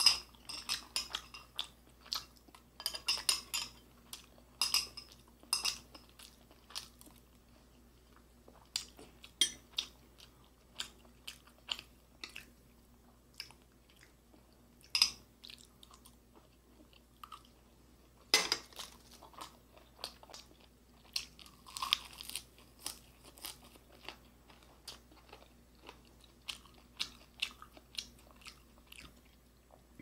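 Close-miked eating sounds of a person chewing and biting fried beef and rice: irregular runs of short, sharp mouth sounds, busiest in the first few seconds and again about two-thirds of the way through.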